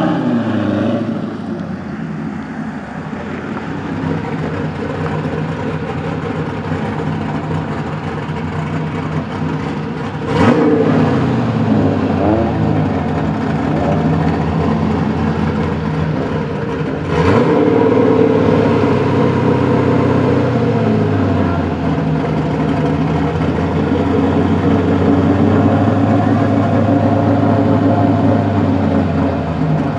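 Drift car's V8 engine idling through its exhaust, revved sharply twice, about a third of the way in and just past halfway, each rev rising quickly and falling back to idle.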